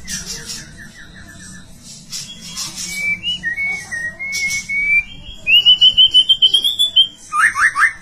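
Female white-rumped shama (murai batu) singing. Harsh rasping calls and a quick run of notes come first, then clear whistled phrases and a fast trill, ending with three quick falling notes. The uploader presents this as a female in breeding condition calling for a male, used as a lure song.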